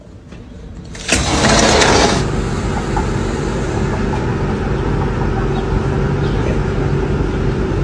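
A sudden loud rush of noise about a second in, which settles into a steady mechanical hum with a low drone, like an engine or motor running.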